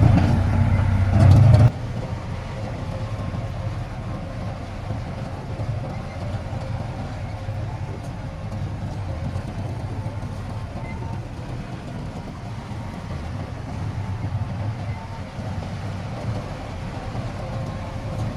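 Heavy-equipment diesel engine running. It is loud for the first couple of seconds, then cuts abruptly to a quieter, steady engine sound.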